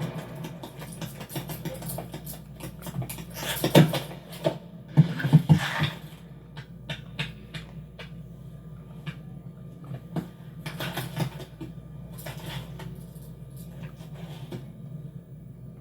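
Animated-film Foley and sound effects: scattered knocks, thuds and clatters over a steady low hum, loudest about four seconds in and again from about five to six seconds in, then sparser light clicks and knocks.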